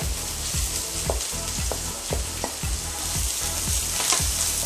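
Freshly added onion frying in hot groundnut oil with cumin, garlic, ginger and curry leaves, a steady sizzle.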